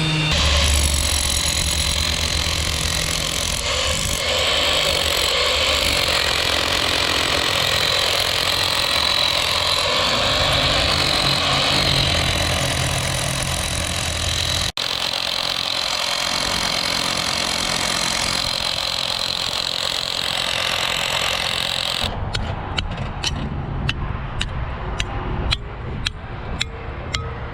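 A vehicle engine running steadily, with a brief break about halfway through. Near the end it gives way to a series of regular sharp clicks, about two a second.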